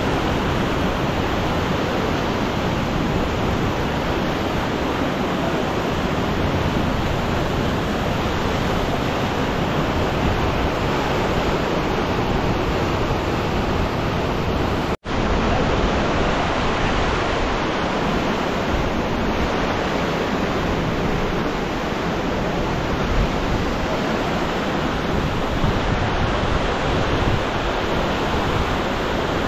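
Fast, muddy river rushing over rapids close by: a steady, loud wash of white water, with a split-second cut to silence about halfway through.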